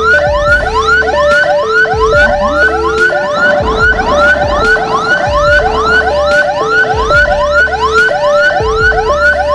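Emergency sirens on an ambulance escort sounding together: a siren giving quick rising chirps, about two or three a second, over a two-tone siren stepping back and forth between a low and a higher note.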